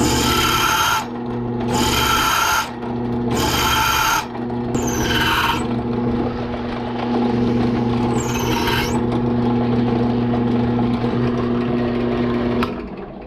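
Drill press motor running with a steady hum while the bit is fed into the head of a stripped Allen screw in about five one-second bursts, each a high grinding squeal of the bit cutting metal. The motor shuts off near the end.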